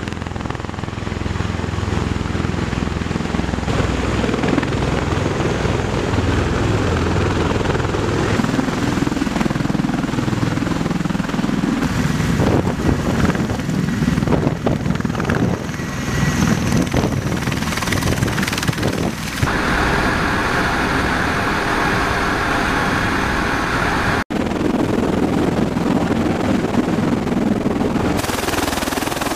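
MV-22B Osprey tiltrotor aircraft landing and running on the ground: a loud, steady rotor and engine noise with rotor-wash wind buffeting the microphone. The sound changes in character at several edits and drops out briefly about 24 seconds in.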